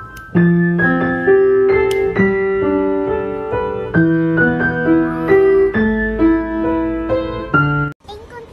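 Piano music: a simple melody of sustained notes. It cuts off abruptly near the end.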